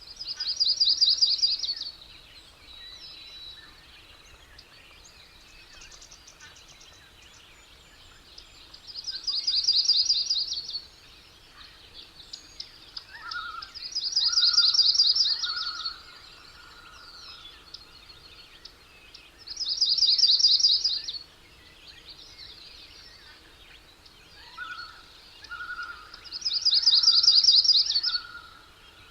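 A bird's high, rapid trill, repeated five times at intervals of several seconds over a faint outdoor ambience. A quieter, lower held tone runs under the third and fifth trills.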